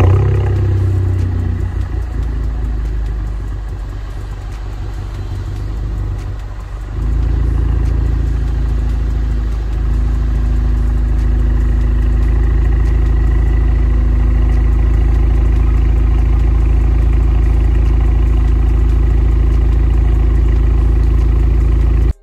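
Alfa Romeo Giulia Q4's turbocharged four-cylinder engine heard at the exhaust tip: it starts with a sudden loud flare, then settles to a steady idle rumble. About seven seconds in the rumble steps up louder and holds steady.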